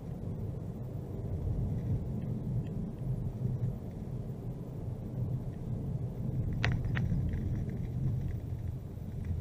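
A car driving at low speed: a steady low rumble of engine and tyre noise, with two brief sharp ticks about two-thirds of the way in.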